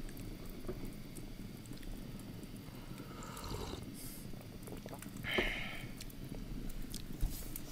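A man sipping a drink from a mug close to the microphone: faint sips and swallows through the middle, then a short, louder sound a little after five seconds as the drinking ends.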